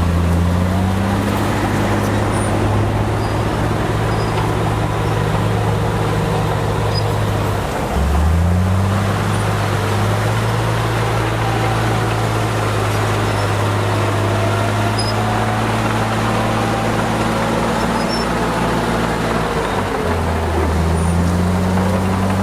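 Bulldozer diesel engine running steadily. Its pitch dips sharply about eight seconds in and again near twenty seconds, then climbs back each time.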